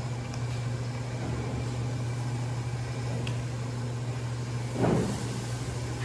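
Steady low hum of a commercial kitchen's exhaust hood fan, with one brief louder noise about five seconds in.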